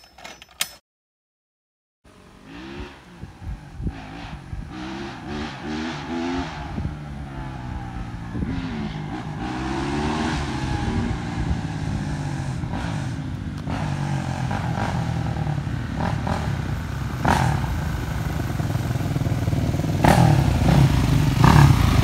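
Dirt bike engines revving up and down as the bikes ride closer, growing steadily louder, after a brief cut to silence about a second in.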